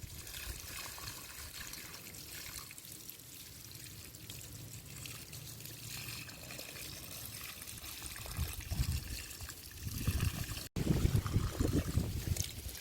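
Water trickling as a steady, soft hiss. After a sudden cut near the end, louder gusty rumbling, like wind on the microphone.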